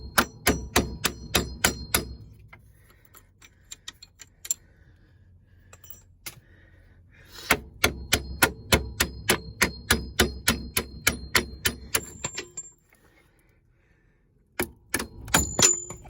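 Hammer blows on steel, driving the strut-to-knuckle bolts out of a Plymouth Voyager's front strut assembly. There are two runs of quick strikes, about four or five a second, each with a metallic ring. One run comes at the start and a longer one about halfway in, followed by a few more blows near the end.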